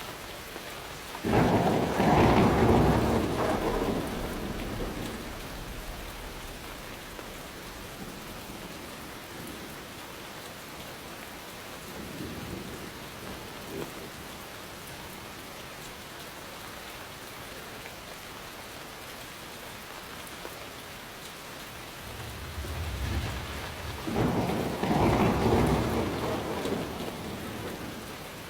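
Steady rain with thunder. A sudden clap about a second in rumbles away over a few seconds, a faint low rumble comes in the middle, and a second roll builds and rumbles near the end.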